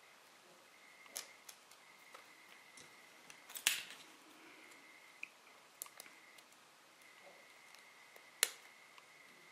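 Scattered small clicks and taps from handling paper nail forms and tools, the loudest a short cluster about three and a half seconds in. Near the end, one sharp snip as a metal nail clipper cuts the tip of a hardened flour nail extension. A faint steady high tone runs underneath.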